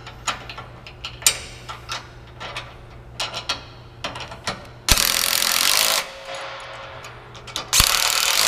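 Cordless impact driver hammering bolts tight, in two runs of about a second each, the bolts clamping a lawn striper roller's flange bearing to the mower deck bracket. Before the runs come light metal clicks as the socket and wrench are set on the bolt.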